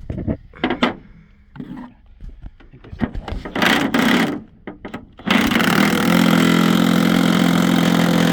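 Scattered metal knocks and clicks from work on a drive shaft U-joint. About five seconds in, a motor starts up and runs at a steady, even hum.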